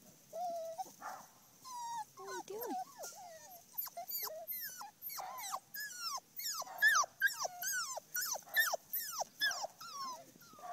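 Six-week-old puppies yelping and whining while they play-fight. A few lower whines come first, then from about four seconds in a quick series of high yelps, each dropping in pitch, about two a second and growing louder.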